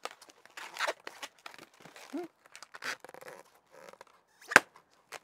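Long modelling balloon being twisted into a balloon dog: irregular rubbery rubbing and squeaking of the latex, with one sharp snap-like click about four and a half seconds in.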